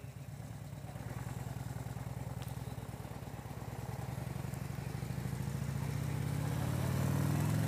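Harley-Davidson touring motorcycle's V-twin engine pulling away from a stop and accelerating, growing louder and rising in pitch toward the end.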